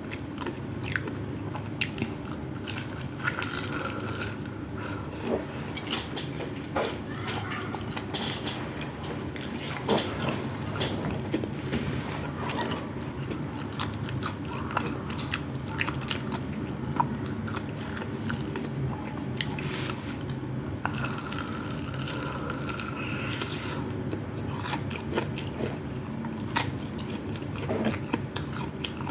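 Close-miked eating: biting and chewing food, with crunches and many small wet clicks of the mouth throughout.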